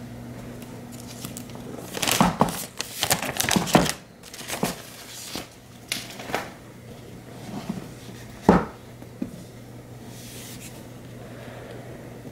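An orange Apple Watch Hermès cardboard box being handled on a hardwood floor: a flurry of rustling and scraping about two seconds in, then scattered lighter touches and one sharp knock of the box against the floor about eight and a half seconds in. A low steady hum sits underneath.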